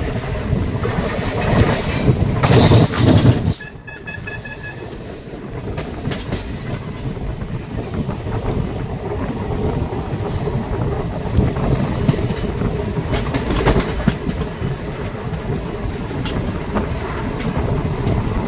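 Yesvantpur–Puri Garib Rath Express rolling along, heard from on board: a steady rumble of wheels on rails with scattered clicks of the rail joints. The noise is loudest in the first few seconds, drops suddenly about three and a half seconds in, then builds back to a steady run.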